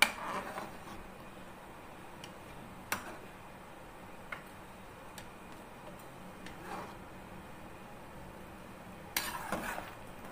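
A steel skimmer spoon clinking and scraping against an aluminium pressure cooker while foam is skimmed off boiling mutton and lentils. There are a few single clicks spread out, then a louder run of clinks and scrapes near the end.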